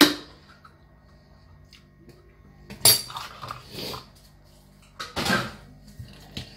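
Cutlery and dishes clattering in a kitchen: a handful of separate knocks and clinks, the sharpest about three seconds in, with another cluster around five seconds.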